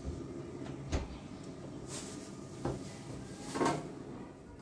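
A few separate knocks and clicks, like household objects being handled, over a low steady hum; the loudest comes a little past the halfway point.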